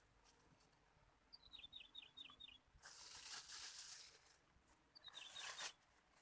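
A small bird calling faintly: a quick run of short chirps stepping down in pitch, heard twice. Between the two runs there is a brief rustling hiss.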